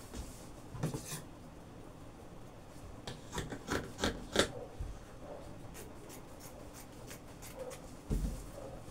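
Scissors snipping through fabric in a quick run of crisp cuts about three seconds in, with a few lighter snips after, then a dull thump near the end.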